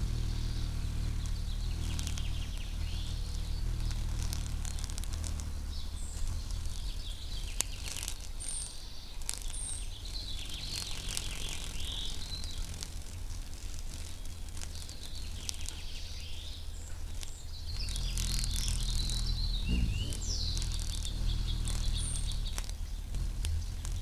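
Outdoor ambience at a nest: scattered short, high bird chirps over a steady low hum, with a few faint clicks.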